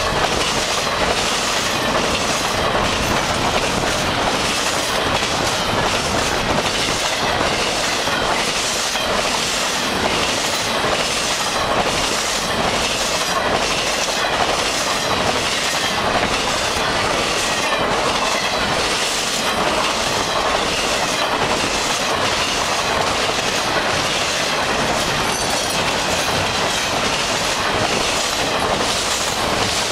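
Double-stack intermodal freight cars rolling past fast and close: a steady loud rush and rumble of steel wheels on rail, with a regular clickety-clack of wheels crossing rail joints.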